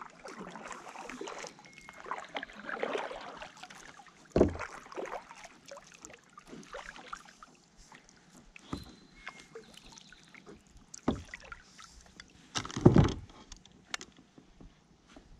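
Kayak paddle strokes: the blades swish and splash through the water in an uneven rhythm, with a few sharp knocks, the loudest a little before the end.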